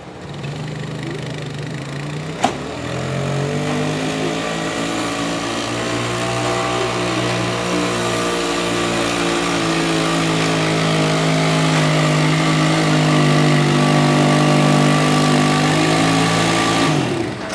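ATV engine running hard under load, pulling a weight-transfer sled, holding a steady pitch and growing louder, then dropping off sharply near the end. A sharp click sounds about two and a half seconds in.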